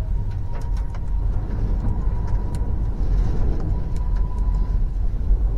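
Airbus A320neo jet engines at take-off thrust, heard from behind the runway end: a loud, deep, steady rumble with a steady high whine over it, and scattered sharp ticks through the middle of the blast.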